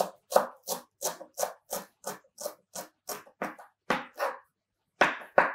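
Kitchen knife chopping fresh parsley and garlic on a cutting board: quick, even strokes about three a second, with a short pause near the end.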